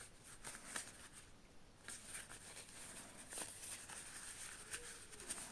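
Faint rustling and light scattered ticks of a small drawstring pouch being handled, its cord pulled and the soft pouch rubbed between the fingers.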